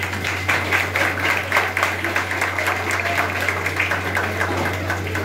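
A room full of people clapping in applause: many quick, overlapping hand claps that keep up steadily, over a steady low hum.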